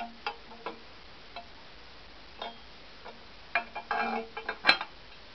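Chrome exhaust header pipe of a Yamaha TTR250 clinking against the engine and frame as it is worked into position: scattered light metallic taps with a short ring, a cluster of rattles about three and a half seconds in, and one sharper, louder clink near the end.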